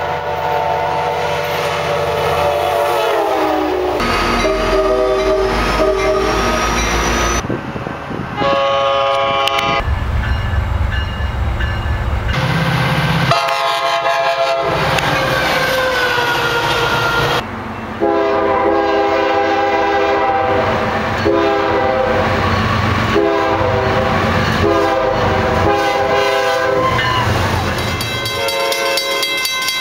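Train air horns sounding in a run of short clips spliced together, each a chord of several tones that stops abruptly when the next clip begins; one chord slides down in pitch as a train passes about three seconds in. Train rumble lies underneath.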